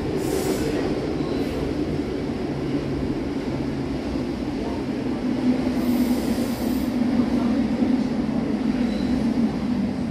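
An SNCB classic electric multiple unit (AM Classique) running at a steady pace, an even rumble with a faint steady hum. Brief high hisses come right at the start and again about six seconds in.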